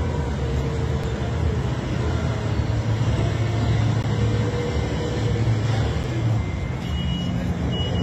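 Diesel engines of a site dumper and a tracked excavator running steadily, the dumper driving past. A high beeping tone joins near the end.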